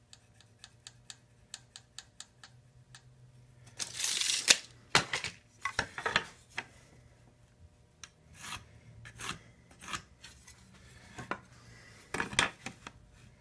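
Carpenter's pencil scratching marks on a pine 2x4 and a speed square scraping and knocking against the board as lines are squared across it. A run of light ticks comes first, then a loud rasping scrape about four seconds in, followed by short separate scratching strokes.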